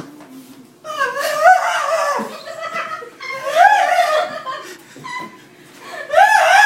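A man squealing with delighted excitement in three high-pitched, wavering bursts, the last near the end.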